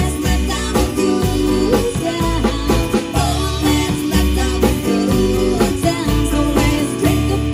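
Live band playing a song on drum kit, electric guitar and acoustic guitar, with a man singing lead into the microphone.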